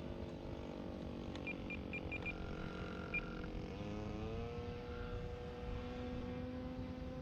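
Engine of a Super Decathlon 120 RC model plane running steadily in flight, its note rising about four seconds in. A few short high beeps, typical of a radio transmitter's trim beeps, sound in the first three seconds.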